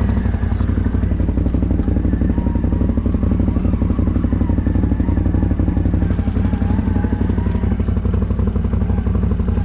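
CFMoto ATV's V-twin engine running steadily at an even pitch.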